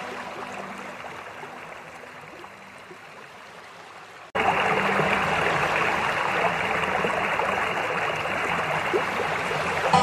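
A faint tail of background music fades away. About four seconds in, it cuts suddenly to a loud, steady rush of water that keeps on evenly.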